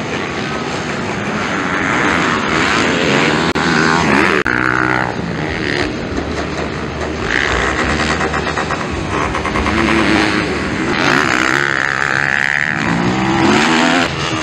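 250cc motocross bikes racing on a dirt track, their engines revving up and dropping back again and again as they take the corners and jumps, with more than one bike heard at once.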